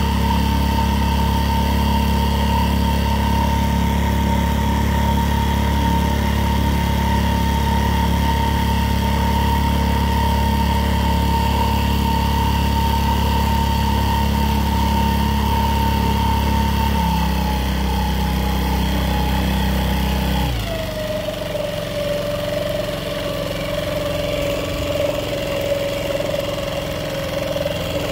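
Small boat motor driving an inflatable boat, running steadily with a whine, then throttled back about two-thirds of the way through: the whine drops to a lower pitch and the low rumble falls away as the boat slows.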